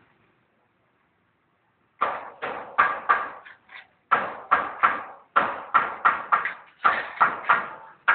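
Bricklaying knocks: bricks being tapped and set into place, a steady run of sharp knocks about three a second, starting about two seconds in.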